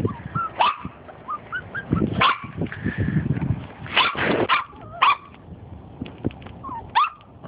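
Pembroke Welsh Corgi puppies yipping and barking in short, high-pitched bursts, with a few squeaky whimpers in between.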